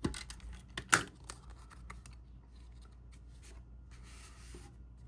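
Cardstock being handled while a pop-up card is put together: a few sharp taps and clicks, the loudest about a second in, then a short rubbing rustle of paper about four seconds in.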